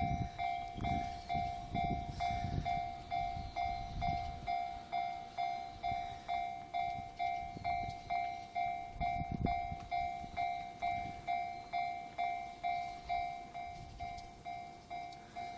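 Japanese railway level-crossing warning bell ringing, an electronic clang repeating about twice a second, with the low rumble of a passing train in the first few seconds and again briefly about nine seconds in.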